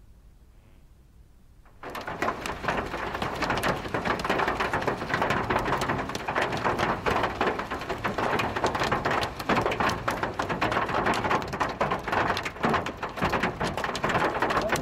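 Hailstorm with heavy rain: a dense, continuous patter of many sharp hailstone and raindrop hits on a flooded road and parked cars, starting abruptly about two seconds in.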